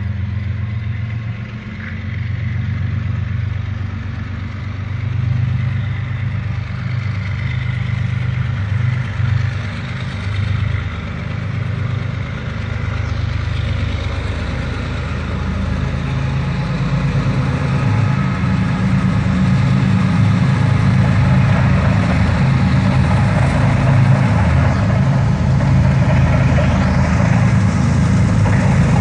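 Two diesel locomotives approaching slowly, their engine rumble growing gradually louder as they draw near.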